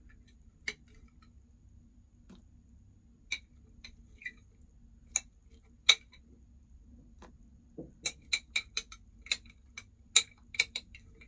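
Spoon and fork clinking and scraping against a plate while eating, in scattered sharp clicks. Near the end they come in a quicker run of about three or four a second.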